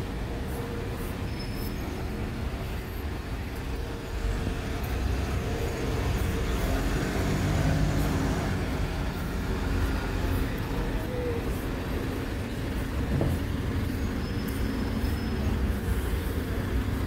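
City street traffic: a steady rumble of vehicle engines and tyres, swelling a little as a heavier vehicle passes a few seconds in.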